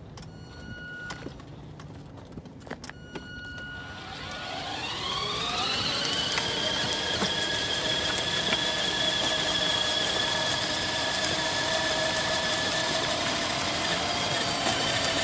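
Electric drive motors of a red children's ride-on toy jeep whining as it pulls away. The pitch rises over about two seconds and then holds steady as it drives at full speed. Before it sets off there are a couple of short beeps and clicks.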